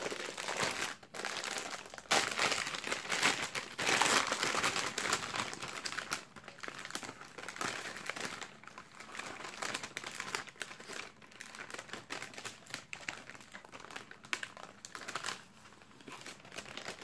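Gold foil packaging of a Panini Adrenalyn XL trading-card starter pack crinkling and rustling as it is torn open and its card packets pulled out. The crinkling is loudest in the first few seconds and lighter afterwards.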